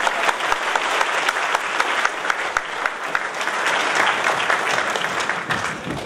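Audience applauding, a dense clatter of many hands clapping that thins out near the end.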